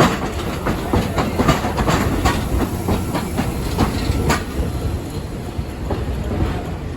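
Rail vehicle running past, its wheels clicking over rail joints over a steady rumble; the clicks thin out over the last couple of seconds.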